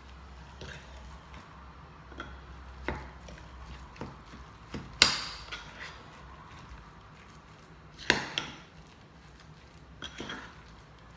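Spoon knocking and clinking against a bowl while stirring a thick garlic-and-spice paste: scattered sharp knocks, the loudest about halfway through and two in quick succession a little later.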